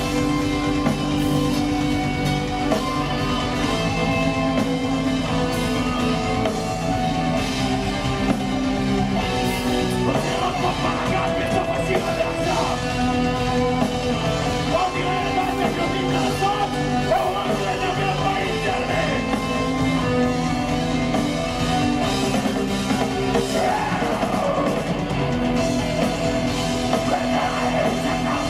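Live gothic-doom metal band playing: distorted guitars, bass, keyboards and drums in dense, sustained chords at a steady loud level.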